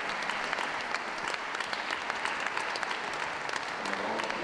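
Ringside crowd applauding steadily: many hands clapping at once.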